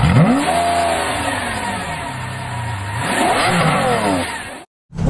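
Car engine revving twice: a sharp rev right at the start that falls away over about two seconds, then a second rev about three seconds in. It cuts off suddenly near the end.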